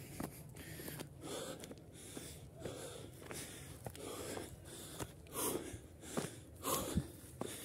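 A person breathing hard close to the microphone, a breath about every second, from the effort of climbing a steep mountain trail. A few sharp clicks of steps on the ground come in the second half.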